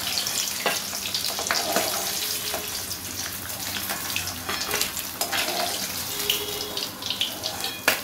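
Khoira fish frying in shallow oil in an aluminium wok: a steady sizzle with crackling spatters, and a few sharp clicks of the spatula against the pan, loudest near the end.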